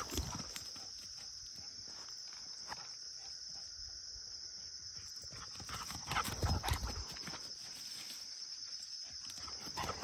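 Footsteps and rustling through grass and weeds on a trail, over a steady high insect drone. About six seconds in, a louder patter of paws and rustle as the dog runs up.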